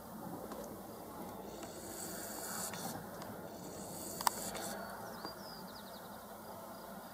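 Turkey vultures hissing: two long hisses one after the other, with a sharp click near the end of the second and a few short high chirps just after.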